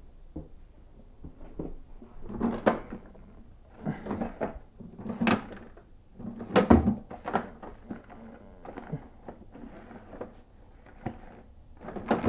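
Irregular clunks, clicks and clatter of hard objects being handled and set down, with a few louder knocks.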